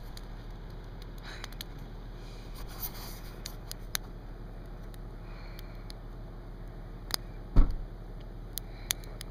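Wood campfire burning, with scattered sharp pops and crackles over a steady low hum, and one louder knock about three-quarters of the way through.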